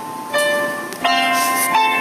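Instrumental intro of a karaoke backing track: single bell-like struck notes, one about every 0.7 seconds, each ringing on and slowly fading.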